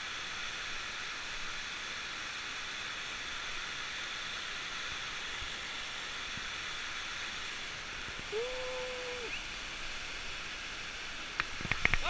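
Steady rush of a waterfall pouring over a rock face. About eight seconds in a short held vocal call rises over it, and near the end come a few sharp knocks.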